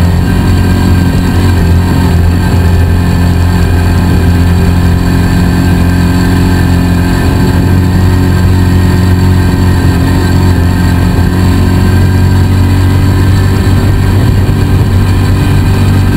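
Polaris RZR 170's single-cylinder four-stroke engine running loud and steady at an even speed while the vehicle drives along.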